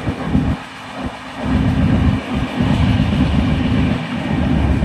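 Moving passenger train running along the track, heard from its open window, with irregular low gusts of wind buffeting the microphone.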